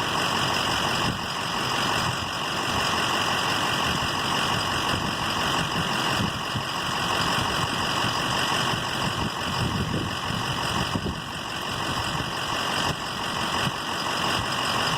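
An engine idling steadily, with an even, unchanging running noise.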